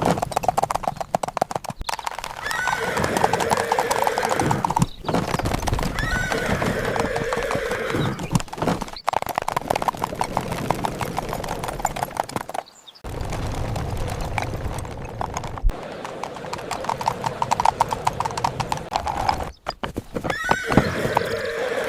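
Horse hooves clip-clopping steadily, with the horse whinnying several times.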